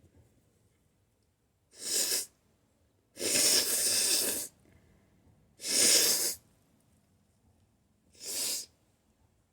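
A person sneezing repeatedly: four hissing bursts. The second, about three seconds in, runs for over a second, and the last, near the end, is the shortest.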